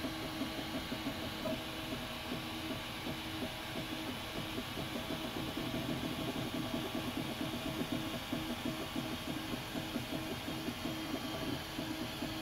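Ultimaker 2+ 3D printer printing: its stepper motors hum in short tones that keep shifting in pitch as the print head moves, over a steady whir.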